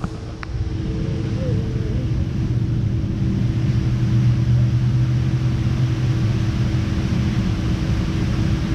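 Steady low engine rumble, with a brief faint click about half a second in.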